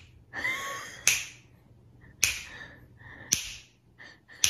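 A person snapping their fingers at a cat: sharp snaps about a second apart, each followed by a short hiss.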